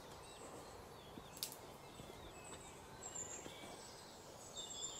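Faint outdoor ambience with scattered distant bird chirps, and one sharp click about a second and a half in.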